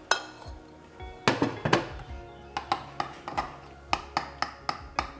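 Background music of quick, sharply struck pitched notes. About a second in, a short clatter of a metal saucepan and spoon against a glass bowl.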